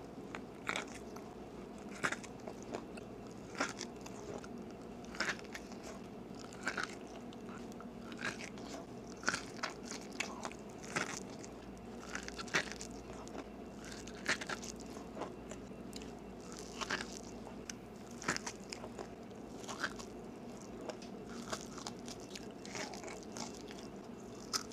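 Close-miked biting and chewing of mini sticky corn on the cob: short crunchy bites into the kernels at irregular intervals.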